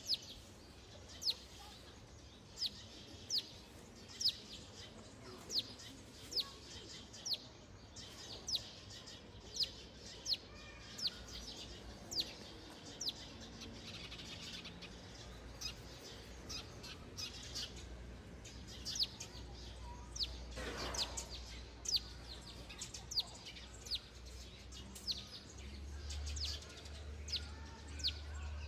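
A small bird calling over and over: a short, high chirp that drops in pitch, one or two a second. A low rumble underneath grows louder near the end.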